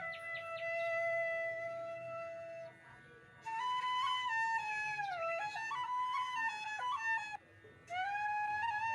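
Background flute music: a slow solo melody that holds one long note, pauses briefly, then moves through a phrase with sliding, bending notes, pausing again shortly before the end.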